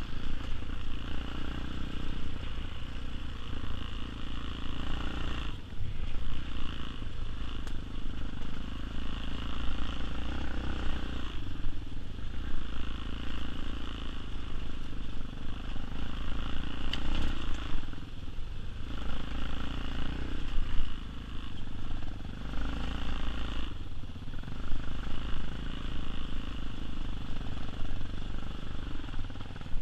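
Tao Tao TBR7 dirt bike engine running under way on the trail. Its note drops off briefly several times, about every six seconds, as the throttle is eased and reopened.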